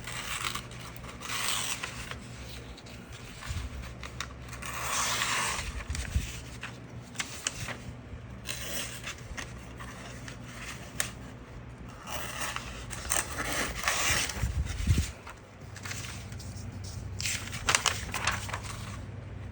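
Fixed-blade knife, a TOPS Knives SXB Skullcrusher, slicing through a sheet of paper to test how sharp its edge is. There are several separate slicing strokes, a few seconds apart, with paper rustling between them.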